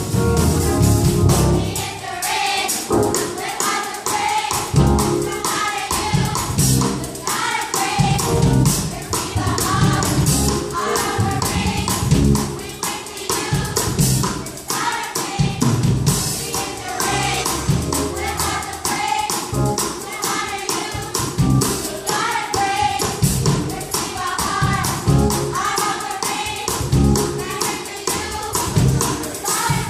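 Gospel choir singing in full voice over a band with drums, bass and steady percussion.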